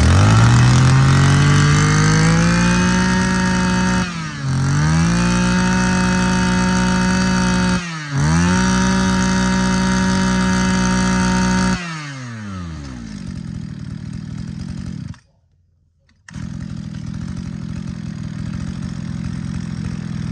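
A Mitsubishi TL23 23cc two-stroke brush cutter engine revving to high speed, its pitch climbing and then holding steady with two brief dips about four and eight seconds in. About twelve seconds in the pitch falls away as it slows, and it cuts out. After a short silence, a quieter steady running sound follows.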